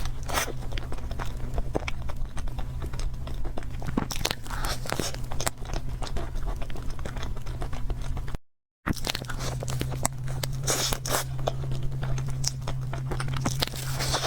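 Close-miked eating sounds: chewing and biting with many small wet smacks and clicks, over a steady low hum. The sound drops out completely for a moment just past halfway, at an edit.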